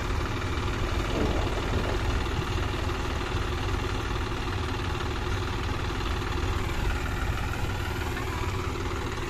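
John Deere 5039D tractor's three-cylinder diesel engine running steadily as it pulls a loaded sand trolley through shallow river water.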